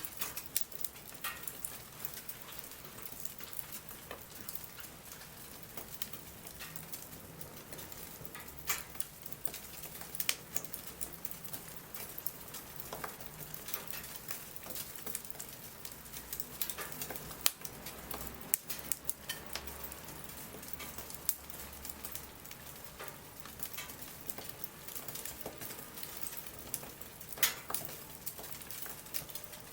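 Wood bonfire crackling, with a few louder sharp pops scattered among many small snaps, over a steady hiss of light rain.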